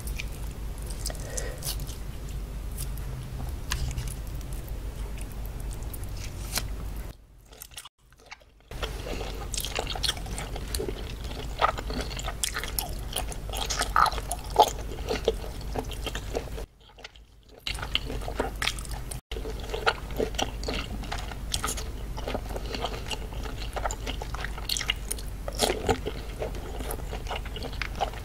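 Close-miked chewing of octopus, with dense wet mouth clicks and smacks. The octopus is a bit chewy. The sound breaks off briefly twice.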